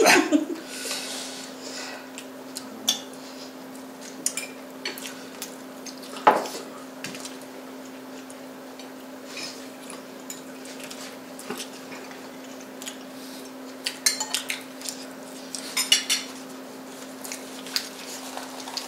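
Forks clinking and scraping on dinner plates during eating, in scattered short clicks with a sharper one about six seconds in and a quick run of clicks near the end, over a steady low hum.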